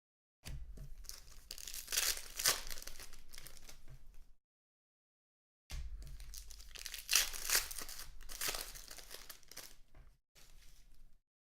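Trading card pack wrappers being torn open and crinkled, with the cards handled, in two stretches of rustling. The sound cuts to dead silence for about a second between them.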